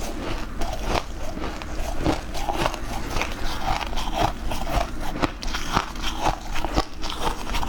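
Hard clear ice being bitten and chewed close to the microphone: a dense run of sharp cracks and crunches, several a second.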